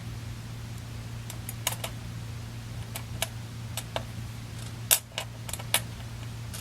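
Small plastic and metal parts of a mini-DIN plug connector clicking and tapping as they are handled and fitted together: about a dozen sharp, separate clicks, the loudest about five seconds in.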